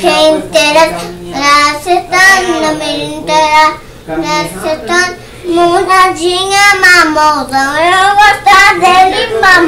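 A little girl singing a song, holding long notes that bend up and down in pitch, with short breaths between phrases.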